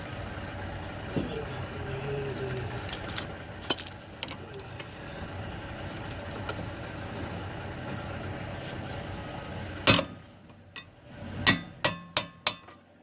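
Metal parts and tools clinking and tapping while brake pads are handled at a car's rear brake caliper: a few single taps over a steady background hum, which drops away about ten seconds in, followed by a quick run of sharp clinks near the end.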